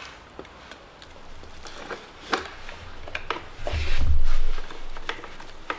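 Scattered clicks and clinks of a hand tool on metal as the bolt under the intake manifold is worked loose, with a low muffled rumble about four seconds in.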